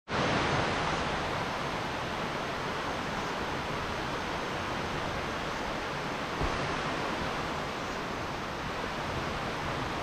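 Steady rushing noise of a waterfall's falling water, with a soft low bump about six and a half seconds in.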